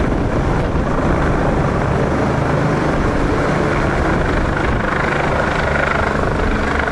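Eurocopter EC145 twin-turboshaft helicopter flying low overhead and climbing away after takeoff, its rotor and turbines running loud and steady.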